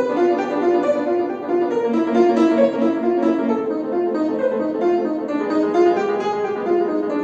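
Instrumental performance of a toccata: quick, evenly repeated notes in the middle register, played without a break.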